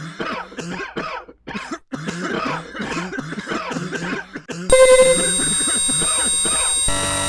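A person coughing over and over in quick short coughs for about four and a half seconds. It is cut off abruptly by a loud, steady electronic sound of many held tones, which shifts in pitch about two seconds later.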